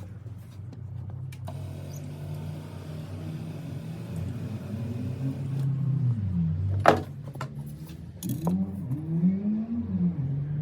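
Small electric motor whirring, its pitch rising and falling as it runs, with a sharp click about seven seconds in. It is most likely the BMW E39's electric seat adjustment motor being run.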